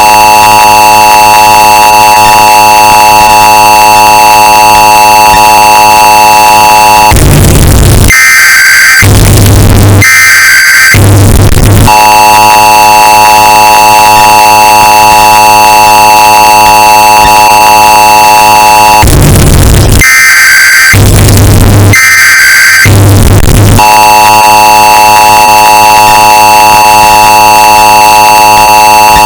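Emergency Alert System alert sound, bass-boosted and clipped into harsh distortion: the steady two-tone attention signal holds for about seven seconds at a time, three times, and between them come two groups of short, buzzing data-tone bursts. Extremely loud.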